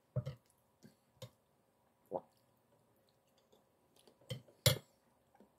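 Eating sounds: a metal spoon tapping and clinking against a ceramic plate, with chewing, heard as a handful of short separate clicks. The loudest click comes near the end.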